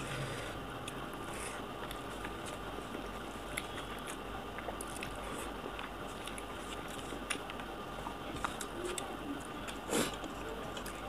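A person eating rice by hand: fingers squishing and mixing rice on a plate, with chewing and many small wet clicks and smacks. A louder sharp click comes near the end.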